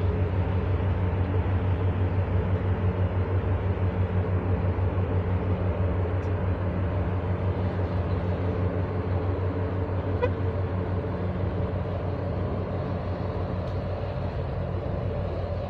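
Chemical tanker's engine and propeller giving a deep, steady, rhythmically throbbing rumble as the ship passes close by entering harbour. The rumble eases a little over the last few seconds as the ship moves away.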